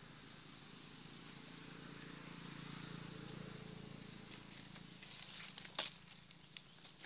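Faint low hum that swells and fades, with a few sharp crackles of dry leaf litter near the end, the loudest about six seconds in, as a monkey moves across the leaves.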